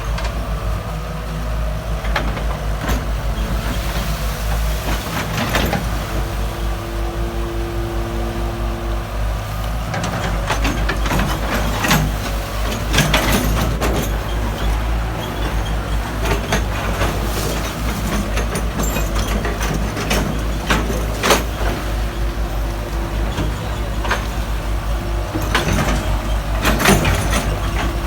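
Backhoe's diesel engine running steadily under load, with repeated metallic clanks and knocks from the working arm and bucket. A steady whine is heard for about three seconds some six seconds in.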